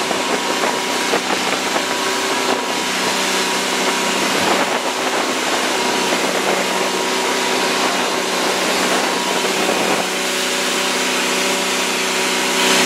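Motorboat engine running at a steady pitch while under way, with wind noise on the microphone. It gets louder near the end.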